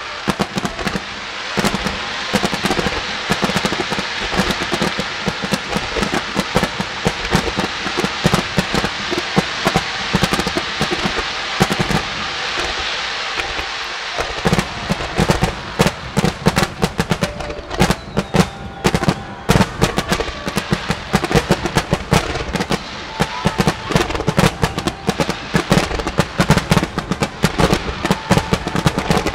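Fireworks display in full barrage: a dense, continuous crackle of many shells bursting, turning about halfway through into rapid, sharper bangs going off close together.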